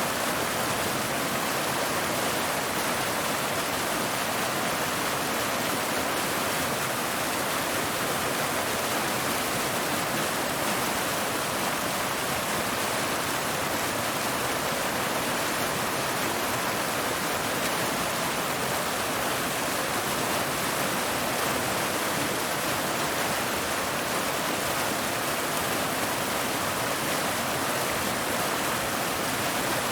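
Waterfall: water falling and splashing over rocks in a steady, even rush.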